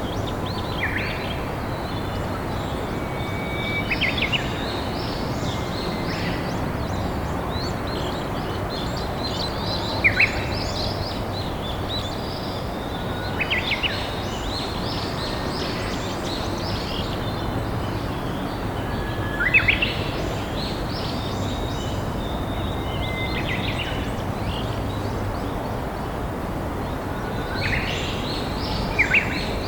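Steady rush of a flowing river, with wild birds singing short phrases every few seconds, a few of them starting on a held whistle and ending in a quick flourish.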